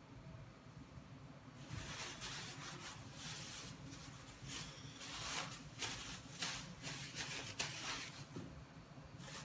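Thin plastic bag crinkling and rustling as it is handled and crumpled in the hands, starting about a second and a half in, with irregular crackles and a few sharp snaps.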